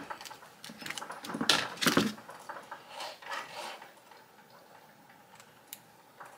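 Scraping and rustling of a UV DTF transfer sheet being worked onto a glass cup, with small ticks and clinks of the glass being handled. The loudest scraping comes in the first two seconds, then only faint handling sounds.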